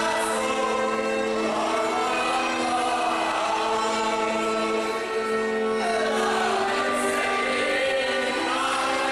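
A group of men singing a Hungarian folk song together in unison, with long held notes that change pitch every second or two.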